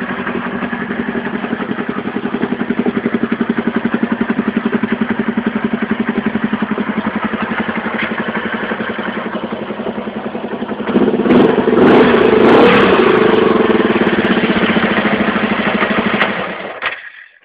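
A 1970 Honda CB motorcycle engine running at idle with a steady, even pulse. It gets louder and rougher about eleven seconds in, then shuts off near the end and dies away within a second.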